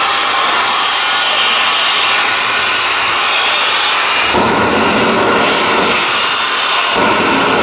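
A jet engine on a show fire truck runs loud and steady at high thrust, its exhaust blasting flames across a car. A deeper rumble joins a little over halfway through.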